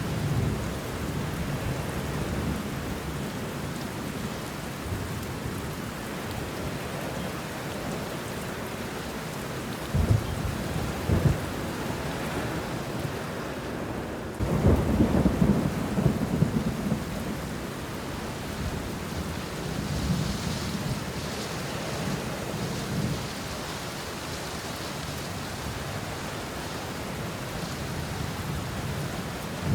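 Steady rain falling on banana leaves and bush, with rolls of thunder: two sharp claps about ten seconds in and a longer, louder rumble around the middle.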